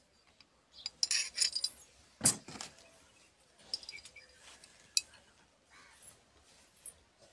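Thin metal rod clinking and scraping against the inside of a glass bottle in scattered sharp clicks and light rattles, with a louder knock about two seconds in.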